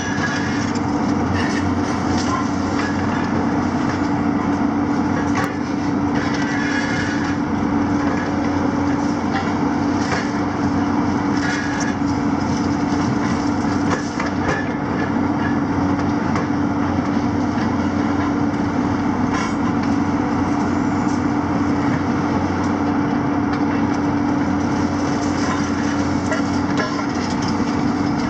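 Diesel engines of a JCB and a Hitachi demolition excavator running under load with a steady drone. Scattered clatter and crunching of concrete and metal debris comes as the demolition grabs work the rubble.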